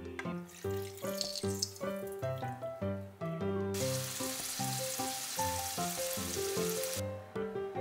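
Battered onion rings sizzling as they deep-fry in a pan of hot oil, a steady sizzle that starts about halfway through and cuts off suddenly near the end, over light melodic background music.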